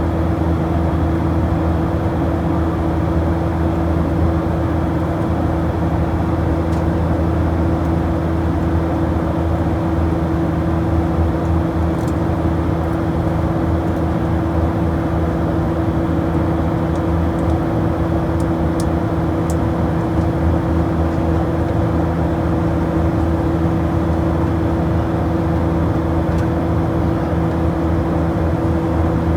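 Steady drone of an aircraft in flight, heard from inside the cabin: constant engine and air noise with a few unchanging hum tones.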